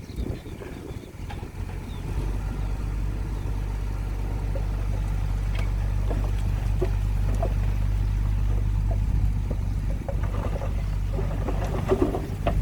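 Heavy diesel construction-machine engine running steadily, coming up about two seconds in, with clanks and rattles near the end.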